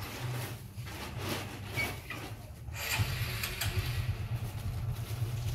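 Rustling and rubbing noises over a steady low hum; the rustling grows louder about three seconds in.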